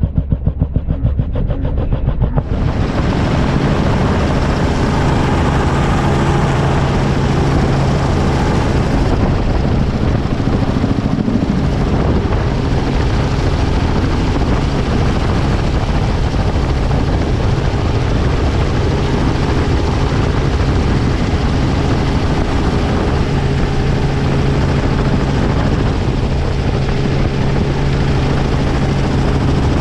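Helicopter in flight, its rotor and engine running continuously. A rapid, regular rotor beat for the first couple of seconds gives way abruptly to a steadier, louder rush with a low engine hum.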